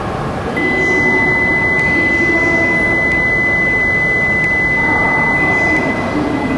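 Station platform departure signal: one steady high electronic tone held for about five seconds, starting about half a second in, over the even hum of the station and the waiting train.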